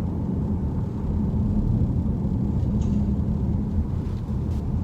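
Steady low road and drivetrain rumble heard inside the cabin of a moving Genesis GV70.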